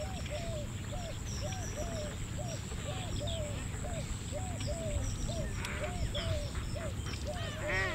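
Birds calling: a short, low call repeated about twice a second, with faint high chirps above it.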